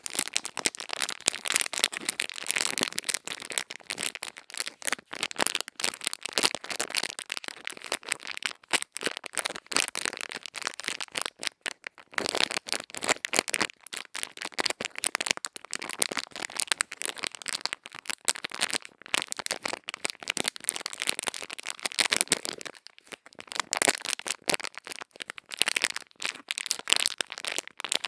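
Close-up crisp crackling and scratching of ear-cleaning tools worked against a microphone's ear, a dense run of fast small clicks and scrapes with short pauses about twelve and twenty-three seconds in.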